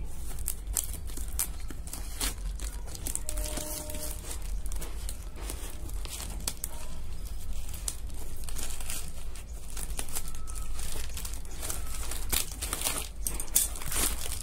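Polythene wrapping on a parcel crinkling and rustling irregularly as it is handled and torn open.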